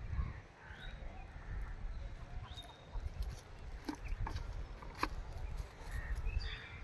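Birds chirping over a fluctuating low rumble, with two sharp clicks about four and five seconds in.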